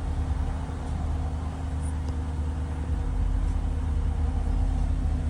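Audi A8 engine running at a steady idle, a low even hum with no change in speed.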